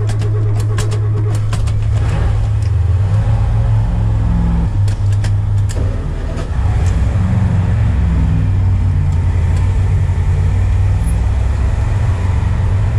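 Twin inboard engines of a Chris-Craft Corinthian 380 cabin cruiser running at idle just after a cold start, sputtering and uneven until they warm up. A few sharp clicks come in the first second and again around five seconds in.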